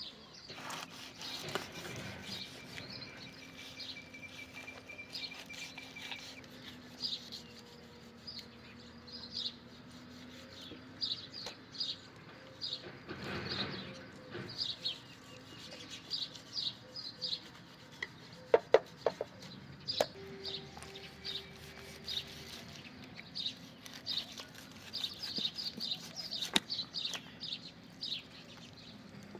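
Small birds chirping in quick short calls over and over, with a few sharp knocks about two-thirds of the way through.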